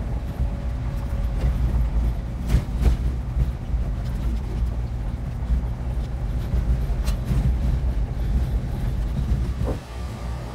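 Ford Ranger pickup driving on a rough dirt road, heard from inside the cab: a steady low engine and road rumble, with a few sharp knocks and jolts from bumps, about two and a half seconds in and again around seven seconds.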